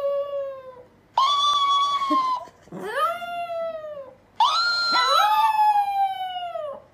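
Small chihuahua howling: about four long, drawn-out howls in a row, each rising at the start and then sliding slowly down in pitch.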